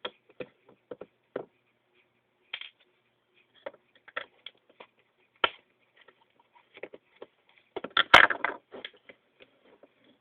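Scattered light clicks and taps as the second side grip panel is worked off a Stinger P311 pistol. About eight seconds in there is a denser run of clicking with one sharp snap.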